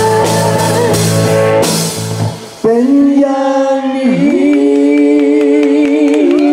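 Live rock band playing, with drum kit, bass guitar and guitar, then stopping about two seconds in. A singer then holds long, wavering notes over sparse backing.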